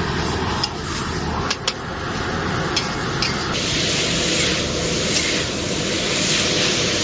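Shredded pork and chili peppers stir-frying in a wok: a steady sizzle with a few sharp clinks of the spatula against the pan in the first half. The sound changes abruptly about halfway through.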